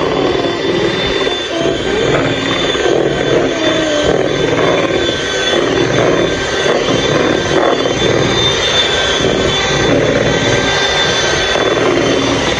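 Electric hand mixer running steadily with a motor whine, its beaters churning cake batter in a plastic bowl.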